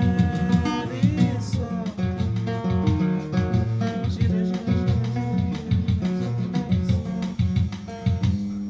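Acoustic guitar playing a rhythmic bar-style accompaniment, with plucked bass notes under strummed chords. The last chord is left ringing near the end.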